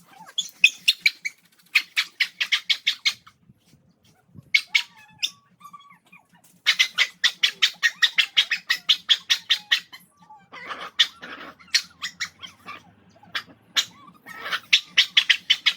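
A bird chattering in runs of quick clicking notes, about seven a second, with short pauses between the runs.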